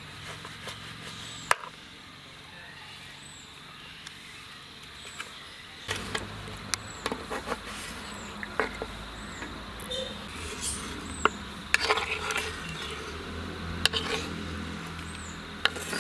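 Knife chopping citron on a wooden chopping board: irregular sharp knocks of the blade on the board, sparse at first and coming thick and fast from about six seconds in. A faint high chirp repeats about once a second behind it.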